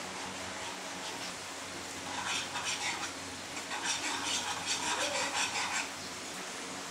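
Metal utensil stirring sauce in a nonstick frying pan as flour water thickens it. From about two seconds in until near the end, quick strokes scrape and clink against the pan over a steady hiss.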